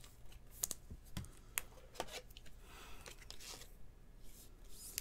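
Soft rustling and a few light clicks as a trading card in a clear plastic sleeve is handled and slid into a rigid plastic card holder.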